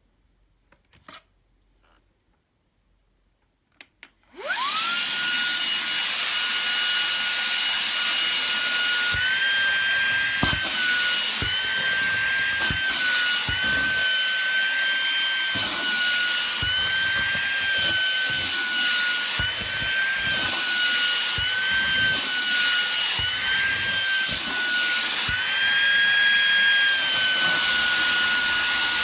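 Shark WandVac 2.0 cordless handheld vacuum switching on about four seconds in, its motor whine rising quickly to a high steady pitch over a loud rush of air. It runs on with its pitch dipping briefly now and then and a few knocks.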